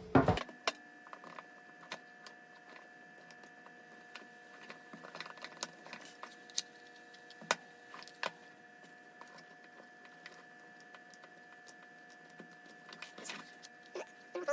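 Scattered light clicks and taps of paracord being worked through a 3D-printed plastic magazine holder, with a louder knock at the very start and a faint steady whine behind.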